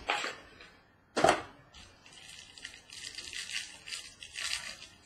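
Plastic wrapper crinkling and tearing as a trading card box is unwrapped by hand, after a sharp knock about a second in.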